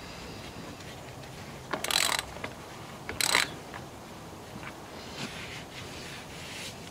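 A new spin-on oil filter being screwed onto an International B414 tractor engine and tightened with a hand tool, with two short scraping bursts about two and three seconds in and a few faint clicks.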